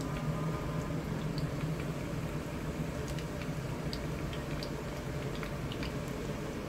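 Breaded banana nuggets deep-frying in hot oil in a wok: a steady sizzle dotted with small pops and crackles, over a steady low hum.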